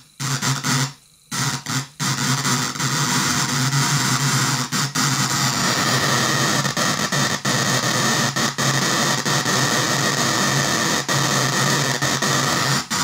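A 20-watt loudspeaker driven by an electromagnetic relay used as an amplifier, its contacts chattering to a phone's music signal: a harsh, distorted buzzing cacophony with no recognisable melody. It stutters on and off during the first two seconds, then runs continuously with a few brief dropouts.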